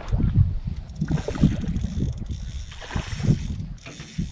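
Spinning reel being cranked against a hooked spot-tail bass (red drum) pulling on the bent rod, its gears giving a light mechanical whirring. Low, irregular rumbling knocks of wind and water against the small boat run under it.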